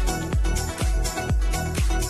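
Electronic dance music with a steady thumping kick drum about twice a second and a heavy bass line.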